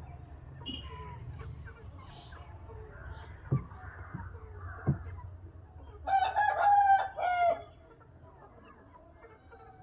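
A rooster crowing once, about six seconds in, for about a second and a half, preceded by scattered soft clucking from chickens. Two short knocks come in the middle.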